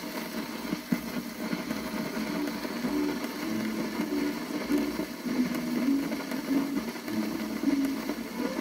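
Surface noise from a stylus tracking the lead-in groove of an old gramophone record: a steady hiss with crackle and small clicks, one sharp click about a second in.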